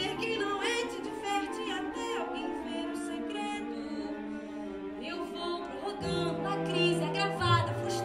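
A woman singing a musical-theatre song over instrumental accompaniment, with a low sustained bass note coming in about six seconds in.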